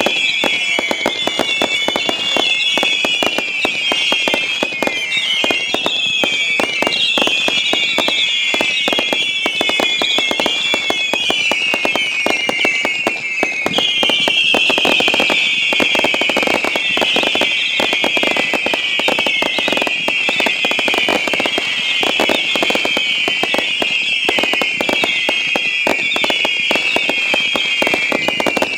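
Consumer fireworks firing whistle effects: many overlapping shrill whistles, each falling in pitch, over dense crackling and popping. A new volley of whistles starts about halfway through.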